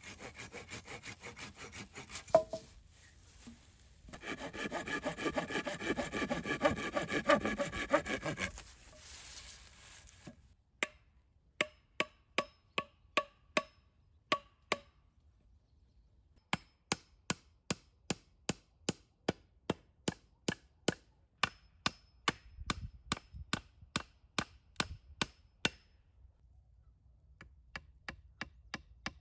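A small hand saw cutting through a thin wooden pole in quick back-and-forth strokes for about eight seconds. After a short pause, a hatchet strikes a stick in a long run of sharp, evenly spaced blows, a little over two a second, with one brief break; the blows stop a few seconds before the end.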